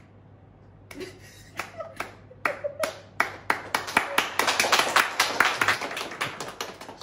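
Several people applauding by hand: a few scattered claps start about a second in, build into dense overlapping applause, and thin out near the end.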